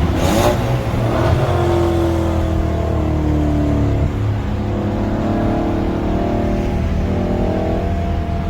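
Dodge Challenger Scat Pack's 392 (6.4 L) Hemi V8 with a mid-muffler delete pulling hard under acceleration, with a brief change in the engine note about four seconds in before it pulls again.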